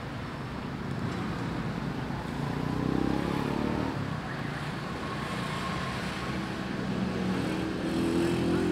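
Road traffic: cars and motorbikes going by, a steady engine and tyre rumble that swells about three seconds in and again near the end.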